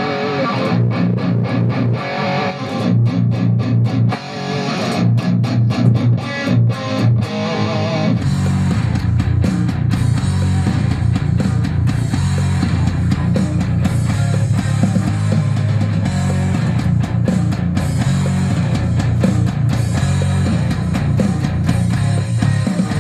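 Heavy metal music with distorted electric guitars: a stop-start riff with short breaks for about the first eight seconds, then continuous riffing with sharp hits to the end.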